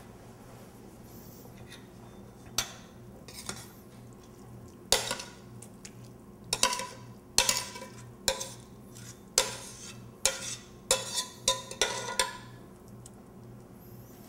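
A metal spoon clinking and scraping against a stainless steel pot and bowl as risotto is spooned out. About a dozen irregular clinks and knocks, some ringing briefly, start a couple of seconds in and stop about two seconds before the end.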